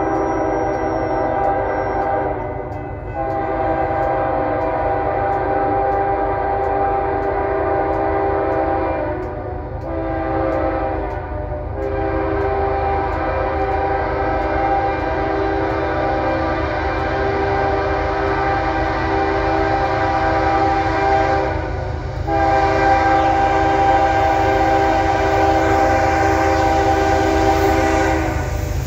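Approaching diesel locomotive sounding its multi-tone air horn in long blasts with one short blast, in the long-long-short-long pattern of a grade-crossing warning, over the low rumble of the train.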